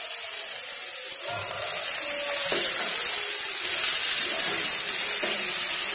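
Drumstick leaves and grated coconut frying in hot oil in a pan, with a steady sizzle while a spoon stirs and scrapes them against the pan.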